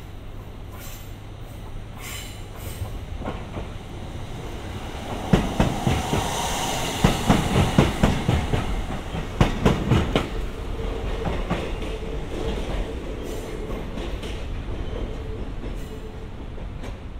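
JR East FV-E991 hydrogen fuel-cell test train passing close by, its wheels clacking over rail joints, loudest a few seconds in. As it moves away a thin steady whine is heard.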